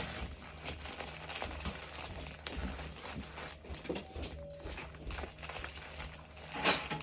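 Parcel packaging crinkling and rustling in irregular bursts as it is handled and opened, with a louder rustle near the end.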